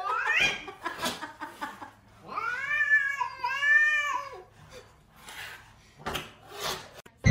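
Domestic cat's defensive growling yowl: a rising cry at the start, then two long wavering yowls between about two and four and a half seconds in, with a few short knocks in between.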